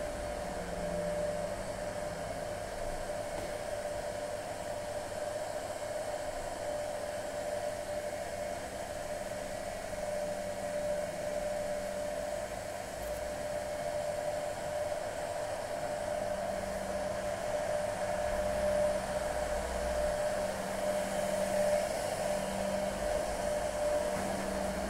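Steady mechanical whirring hum with a constant mid-pitched tone, and a low rumble that swells and fades now and then.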